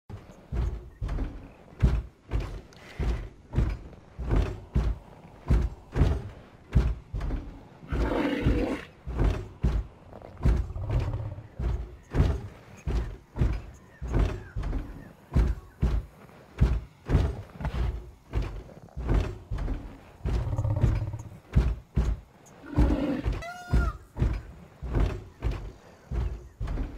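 Heavy footfalls of a walking rhinoceros, thudding steadily about twice a second. A few low growling animal calls come in between, the longest about eight seconds in, and another near the end carries a brief whistle-like tone.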